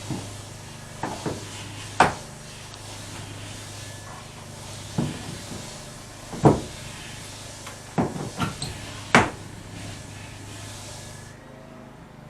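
About eight sharp, irregular knocks, typical of work on the copper nails and roves in a wooden boat hull. They sit over a steady hum and hiss that cuts off shortly before the end.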